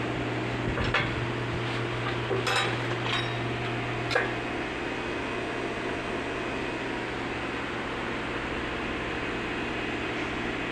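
Steady low hum over a background of workshop noise, with a few light knocks and clicks in the first four seconds or so; the sharpest comes about four seconds in.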